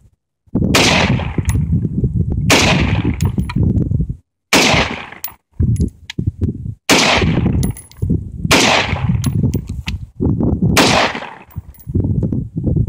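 Six single shots from a newly built AR-15 rifle fired slowly, about two seconds apart, each trailing off in a long low rumble: the first rounds through the freshly assembled rifle.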